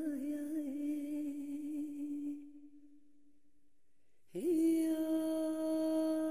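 A lone voice singing unaccompanied: a long held note with a waver fades out about two seconds in. After a pause of near silence, a new long note swoops up and is held steady.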